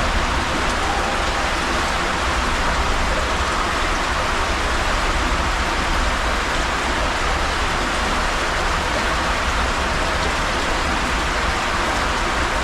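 Steady rush of water streaming down a tube waterslide, an even hiss with a low rumble underneath.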